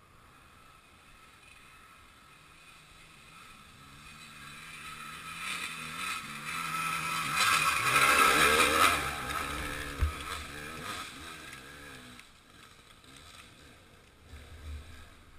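An enduro motorcycle approaching under throttle, passing close by about eight seconds in, then fading as it climbs away up the hill. A single low thump comes just after it passes.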